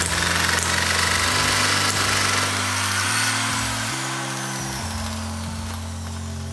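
Small Cison model gasoline engine running fast, a high, noisy whir that dies down over the second half.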